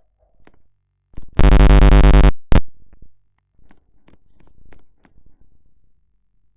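Siren under test giving a loud, steady, buzzy blast of about a second with no rise or fall in pitch, cutting off abruptly, then a second very short blip; faint clicks before and after.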